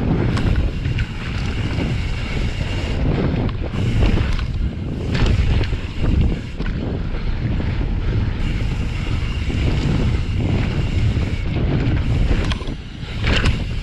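Wind buffeting a GoPro microphone during a fast mountain-bike descent on a dirt trail, over the rumble of the Pyga Hyrax's tyres. Sharp knocks and rattles from the bike come over the bumps.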